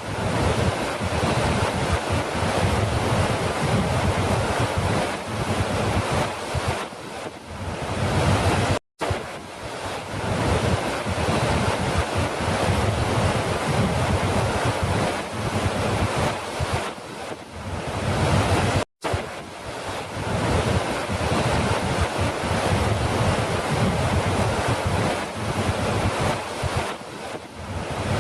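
Falling water rushing in a steady, even stream of noise. It cuts out completely for an instant twice, about ten seconds apart.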